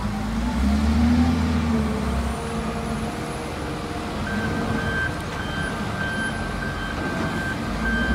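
Large Volvo wheel loader's diesel engine running and revving up and down as it pushes against a heavy stone block. From about halfway a backup alarm beeps rapidly and repeatedly.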